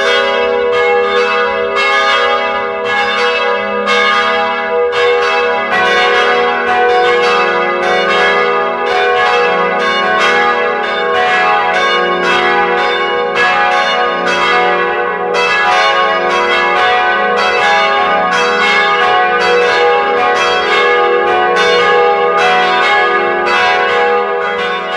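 Church bells ringing a continuous run of strikes, about three a second, each note ringing on into the next so the peal blends together.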